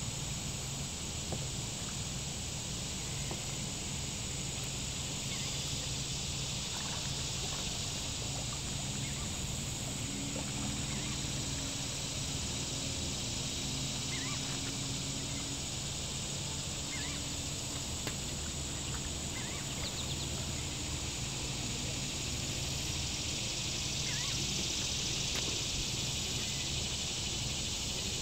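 Steady outdoor insect chorus: an even high-pitched drone that holds at the same level, with a low hum beneath it and a few faint short chirps.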